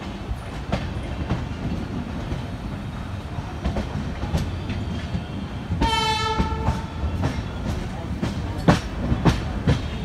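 A moving train's wheels rumbling and clacking over rail joints, heard from inside the coach, with a few louder clacks near the end. About six seconds in, a train horn sounds once for about a second.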